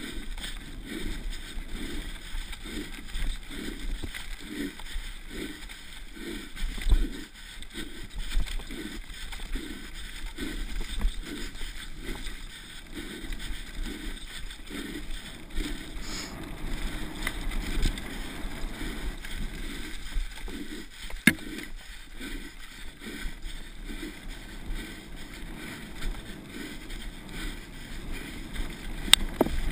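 A mountain-bike rider panting hard and fast in a steady rhythm while racing downhill, over wind and tyre noise on a dirt track. The panting is plain for the first two-thirds, then fades under the riding noise, and two sharp knocks come later on.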